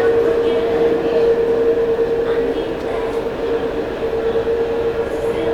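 Steady machinery hum with one constant mid-pitched tone over a rushing noise, with faint voices in the background.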